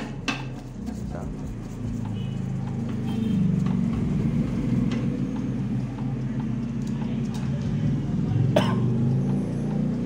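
A steady low rumble, with a few sharp metal clicks from a screwdriver on the microwave magnetron's mounting screws and sheet-metal housing: two right at the start and a louder one near the end.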